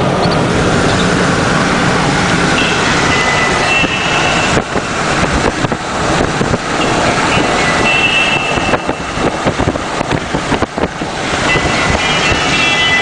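Road and wind noise of a car driving at highway speed, loud and steady, turning rough and gusty through the middle stretch.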